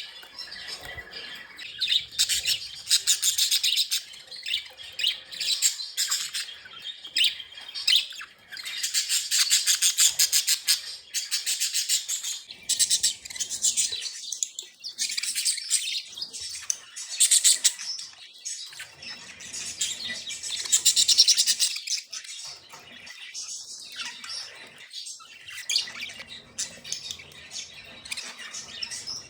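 Budgerigars chattering and warbling in repeated buzzy bursts, with chirps and squawks.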